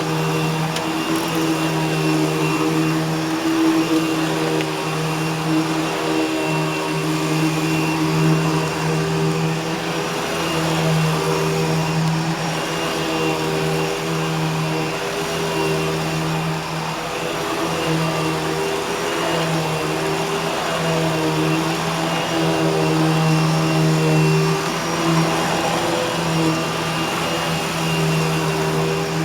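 Eureka Boss Smartvac 4870 upright vacuum cleaner running steadily while vacuuming: a constant motor hum with a thin high whine over it.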